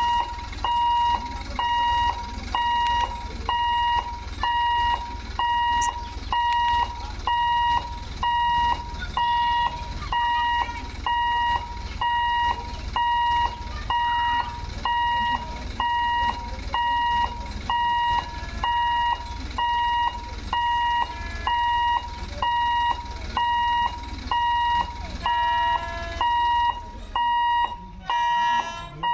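Railway level-crossing warning alarm beeping over and over in an even rhythm, one high tone each time: the signal that the barrier is down and a train is due. A low rumble runs underneath, and near the end other tones join in.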